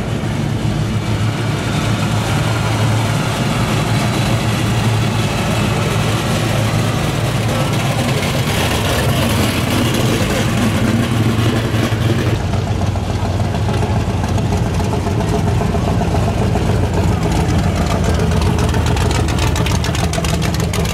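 Classic muscle cars and a hot rod driving slowly past one after another, their engines and exhausts giving a loud, steady, deep rumble. About twelve seconds in the sound shifts abruptly as the next car takes over.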